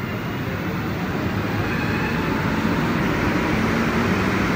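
Montreal Metro MPM-10 (Azur) train running on rubber tyres through the tunnel, heard from inside the car. It is a steady rumble and rush that grows gradually louder, with a faint low tone coming in near the end.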